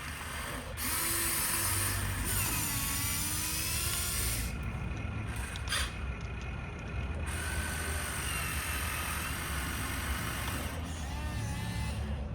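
Small electric motors and plastic gearboxes of a radio-controlled toy construction vehicle whining. The pitch rises and falls as the motors speed up and slow down, with a sharp click about six seconds in.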